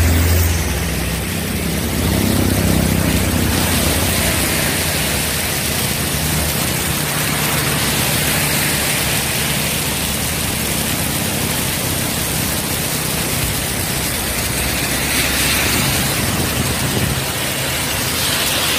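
Heavy rain hissing steadily, mixed with passing road traffic: engines and tyres on the wet road, with a low engine rumble strongest in the first few seconds.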